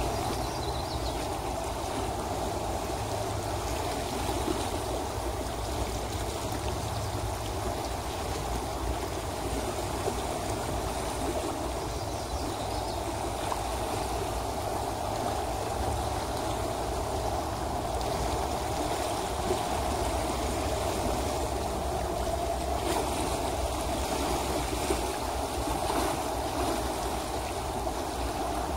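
A river flowing over shallow riffles: a steady rush and babble of moving water with a low rumble underneath.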